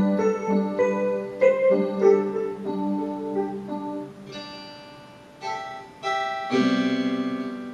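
Portable electronic keyboard played with a piano-like voice: a run of single notes and chords that fades quieter about four to five seconds in. Near the end a louder chord is held, wavering rapidly.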